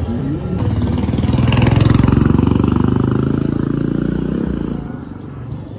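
A motorcycle engine passing close by. It swells to its loudest about two seconds in and fades away by about five seconds.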